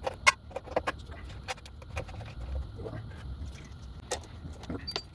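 Scattered metallic clicks and clinks of tools and small parts being handled during motorcycle rear-hub disassembly, the sharpest about a third of a second in, over a low steady hum.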